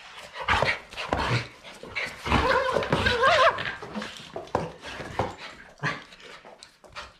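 Jack Russell terrier and Weimaraner play fighting: irregular short bursts of scuffling and panting, with a wavering whine about two and a half seconds in.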